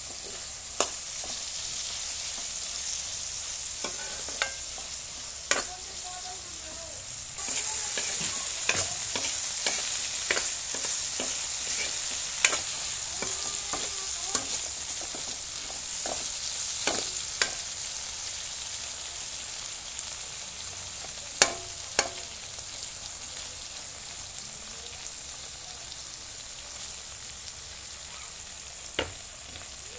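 Salagubang (June beetles) frying in oil in a wok, a steady sizzle that grows louder about seven seconds in, with a metal ladle knocking and scraping against the pan many times as they are stirred.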